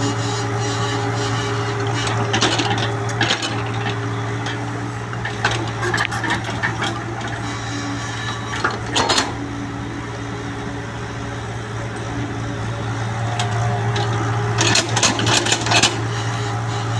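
Excavator digging soil: its diesel engine runs with a steady drone while the bucket and arm clatter and scrape in short bursts, thickest about nine seconds in and again near the end.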